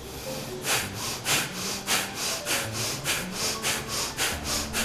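Bhastrika pranayama (bellows or pumping breathing): forceful breaths in and out through the nose in a quick, even rhythm, about three strokes a second, starting about half a second in. Both the in-breath and the out-breath are made loud.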